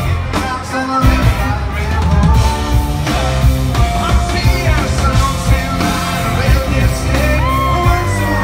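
Live band playing a country-rock song at concert volume: a male lead vocal over drums and electric guitars. The low end drops out briefly and the full band comes back in about a second in.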